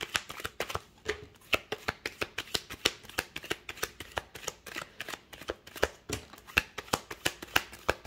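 A deck of oracle cards being shuffled by hand: a steady run of crisp card clicks and slaps, about four or five a second.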